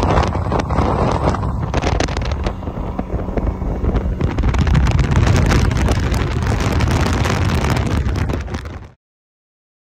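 Wind buffeting the microphone on a bass boat running at speed across a lake, with the outboard motor and hull noise underneath. The sound cuts off suddenly about nine seconds in.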